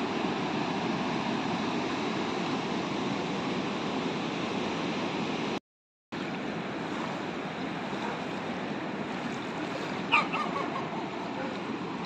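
Sea surf: a steady wash of waves breaking on an offshore reef and lapping at a shallow pebbly shore. It cuts out for about half a second midway, and a brief, sharp, high-pitched sound stands out about ten seconds in.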